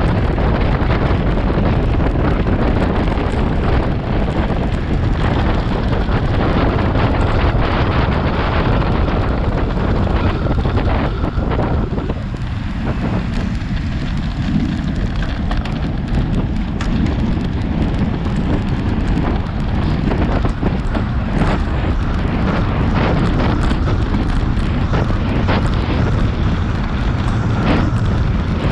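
Heavy wind buffeting on a bike-mounted camera's microphone while riding a road bike at about 30 mph. It eases off for a few seconds around the middle while the bike slows through a corner, then builds again as it speeds back up.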